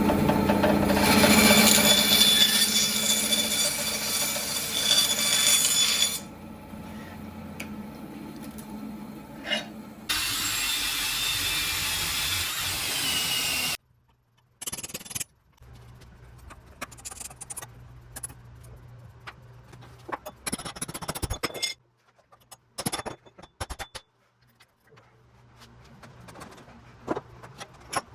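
A power tool running loudly and working a hatchet, in two spells, the second starting about ten seconds in. After it cuts off, scattered hand-tool scrapes, rubs and knocks follow.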